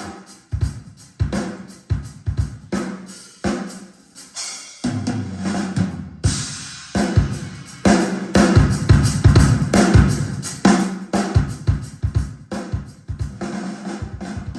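Recorded drum kit from an audio test disc, played back over loudspeakers: a dense run of bass drum, snare and cymbal hits. A bright cymbal wash comes in about six seconds in.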